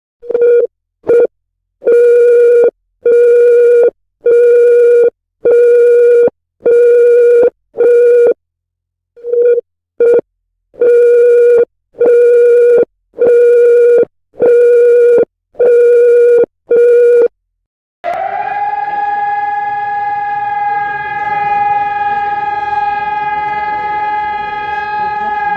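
Emergency alert broadcast tones: two runs of loud, evenly spaced beeps at one pitch, about one a second with a short break between the runs, then from about eighteen seconds in a long steady alarm tone.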